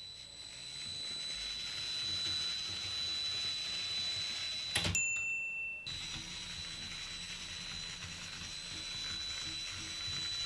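Small electric LEGO train motor whining steadily, with rattling gear noise, as it drives the train up a steep track under load. A sharp click about five seconds in; the whine changes pitch for about a second, then carries on steadily.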